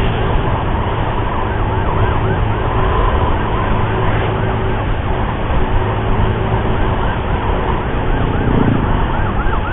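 Ambulance siren yelping in a fast rising-and-falling wail, about three cycles a second, coming in after a couple of seconds. It sits over heavy wind rumble and motorcycle noise at nearly 90 km/h.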